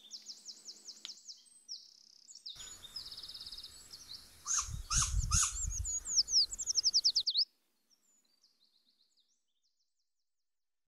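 Small songbirds singing: quick, high repeated notes and trills, with a few louder calls and low thuds about halfway through and a fast run of falling notes that stops abruptly about seven seconds in. Near silence follows.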